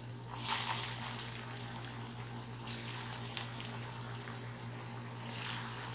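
Prawns coated in crushed rice flakes deep-frying in hot oil: a steady sizzle with scattered crackles and pops, over a low steady hum.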